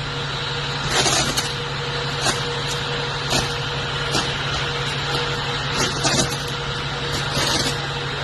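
Short-circuiting power lines arcing: a steady electrical hum with irregular sharp crackles about once a second.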